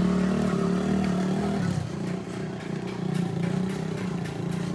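An engine running steadily with a low, even hum that drops in loudness a little under two seconds in.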